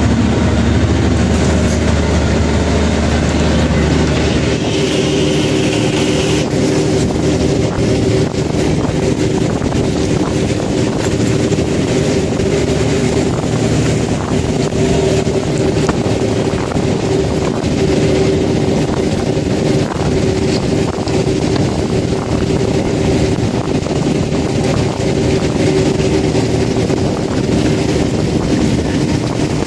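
Fishing boat's engine running steadily, with a dense, continuous clatter of plastic eel tube traps knocking together as the crew handle the strings of traps on deck. The deepest part of the hum drops about four seconds in.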